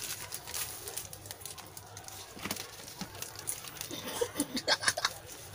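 Small plastic sachets of chocolate powder crinkling and crackling as they are squeezed and handled while being eaten, with sharper, louder crackles about four to five seconds in. Brief muffled vocal sounds come in at the same time.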